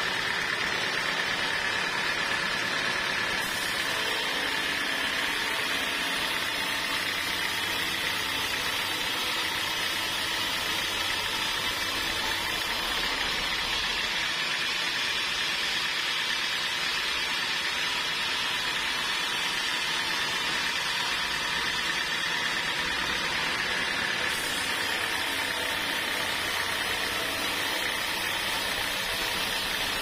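Homemade band sawmill running steadily, its blade sawing lengthwise through a large trembesi (rain tree) log, with a steady high whine over the machine noise.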